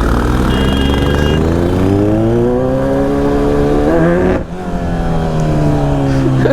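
Kawasaki Z900's inline-four engine accelerating hard, the revs climbing through a gear, dropping briefly at a shift about four and a half seconds in, then climbing again. A short high-pitched tone sounds about half a second in.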